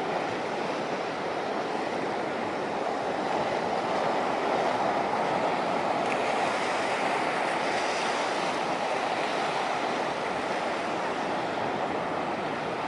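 Ocean surf washing onto the beach as a steady rush of noise, swelling a little about four seconds in.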